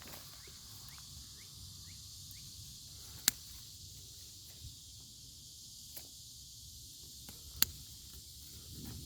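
Steady high-pitched chorus of insects, with two sharp clicks about four seconds apart and a few fainter ticks.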